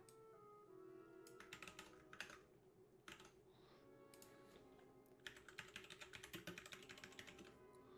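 Faint computer keyboard typing: a few keystrokes about a second and a half in, then a longer run of keystrokes from about five seconds in.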